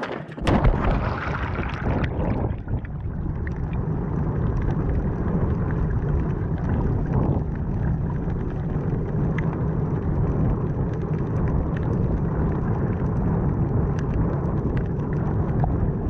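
A splash as the camera goes into the sea, then the steady, muffled rumble of water heard underwater, with scattered faint crackles.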